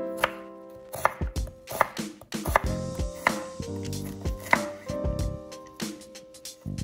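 Chef's knife slicing a red onion on a wooden cutting board: a series of sharp knocks of the blade hitting the board, irregularly spaced at roughly two a second.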